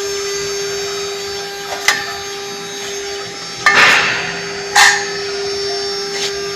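AKG1212 CNC router engraving machine running, its spindle giving a steady whine, with four sharp knocks, the loudest about four and five seconds in.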